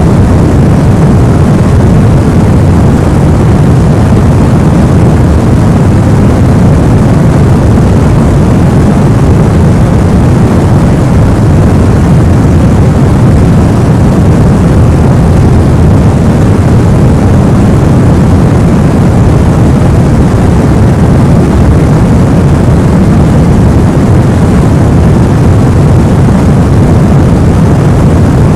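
White-noise sleep track: a steady, unchanging rushing noise, deep and heaviest in the low end, with no breaks or events.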